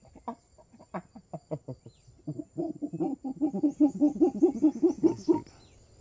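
An animal calling in a series of short, low notes: scattered at first, then a fast, even run of about seven a second for some three seconds, which stops abruptly near the end.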